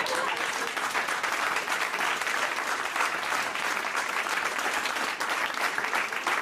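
Studio audience applauding steadily after a joke's punchline.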